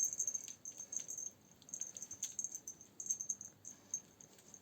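Irregular light jingling and clicking of a cat's toy as the cat plays with it, in quick clusters that thin out near the end.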